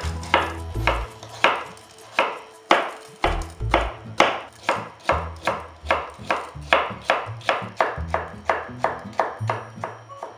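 Chef's knife julienning new potatoes on a wooden cutting board: a steady run of sharp knocks, about three a second, as the blade chops through and strikes the board. Background music plays underneath.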